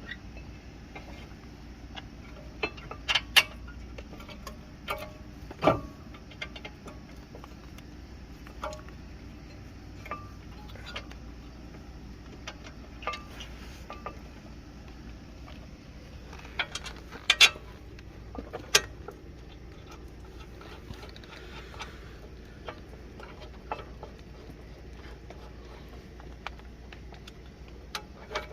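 Scattered metallic clinks and clanks of hand tools and brake parts being handled during a front brake pad and rotor job, with a handful of louder knocks among lighter ticks.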